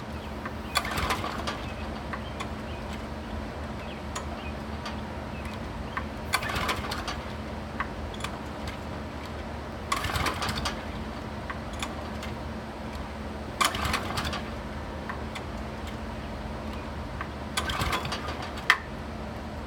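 Ariens tiller's small engine being pull-started five times, each recoil-cord pull cranking it for under a second without it catching, with a sharp click near the end. It turns over but won't fire, although it has spark and fuel reaches the cleaned carburettor.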